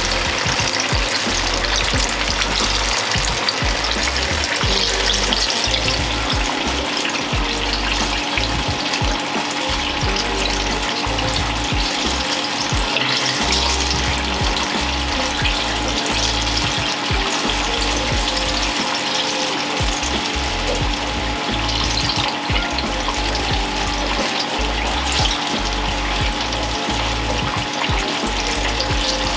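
Battered apple slices deep-frying in hot oil, a steady, dense sizzle and crackle as the cornstarch batter crisps.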